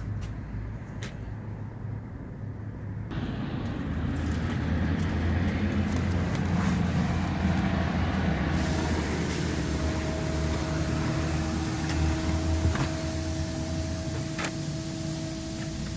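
Pressure washer running: a steady motor hum, with spray noise coming in about three seconds in and growing fuller, and a steady whine joining about halfway through.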